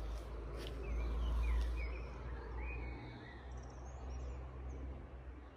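A few short bird chirps over a low rumble, which is loudest about a second in.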